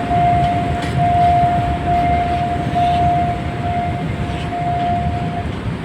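Freight train passing a level crossing, with a continuous low rumble. A steady, high, unbroken tone sounds over it and stops about five and a half seconds in.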